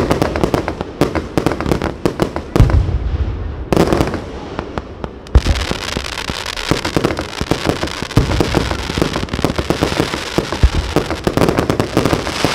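Fireworks display: a fast run of sharp bangs and crackling, with deep booms of bursting shells at about two and a half, five and ten seconds in. From about five seconds on, a dense, continuous crackle fills in.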